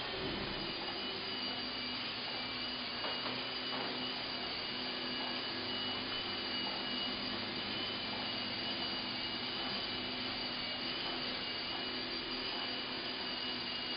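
Blade mCX micro coaxial helicopter in flight: its small electric motors and counter-rotating rotors give a steady whir with a thin high whine on top.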